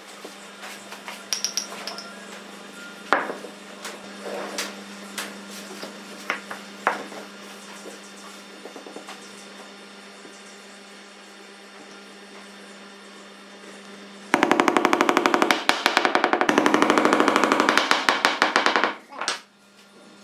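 Scattered knocks and taps on wood, then about five seconds of a power tool running loud with a fast, even pulse before it stops.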